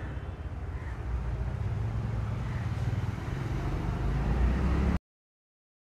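A steady low rumble that grows slightly louder and then cuts off suddenly about five seconds in.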